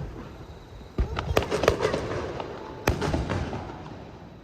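Aerial firework shells bursting: a bang about a second in, followed by a rapid run of crackling pops, then another sharp bang near three seconds with more crackle dying away.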